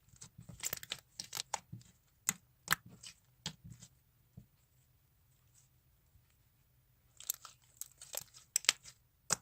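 Slime being worked with small polystyrene foam beads, making irregular crisp crackles and pops. They come in two spells with a pause of about three seconds between.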